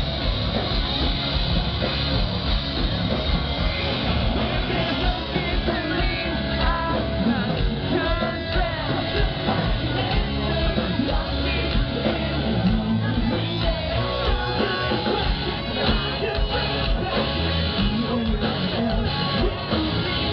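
A rock band playing live at full volume, with electric guitars, drums and a singer's vocals, heard from within the audience.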